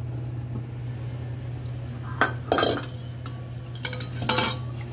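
Steel bowl clanking against an aluminium pressure cooker, two short bursts of metal-on-metal knocks about two and four seconds in.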